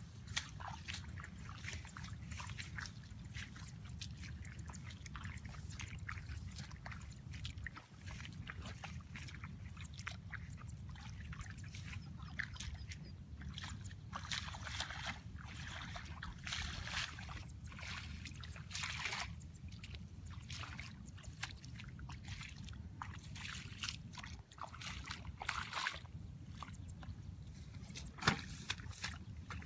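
Water sloshing and splashing in irregular small bursts, with a louder splash near the end, over a steady low rumble.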